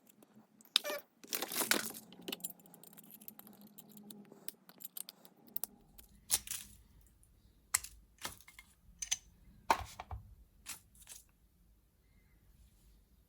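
Sharp clicks, taps and a short scrape of hand tools working on the casing of a cylindrical 2 V lead-acid cell as it is pried open, the knocks coming in a loose irregular run of about a dozen.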